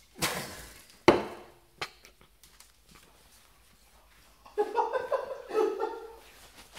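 A person draws breath hard through a homemade bottle filter packed with cotton balls and activated carbon, then coughs: one sharp cough just after a second in, and a run of rough, voiced coughs near the end.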